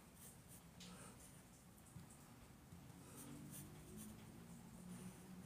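Pencil scratching on paper in short, quick strokes, faint, with a faint low hum in the second half.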